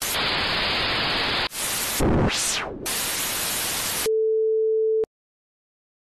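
TV-static sound effect: a loud hiss of white noise with a short swooping sweep through it partway in, then a steady mid-pitched beep lasting about a second that cuts off abruptly.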